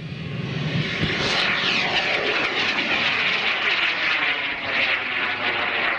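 L-class sugar-propellant rocket motor burning through lift-off and boost: a loud, steady, hissing roar that swells over the first second and then holds, its tone sweeping downward as the rocket climbs.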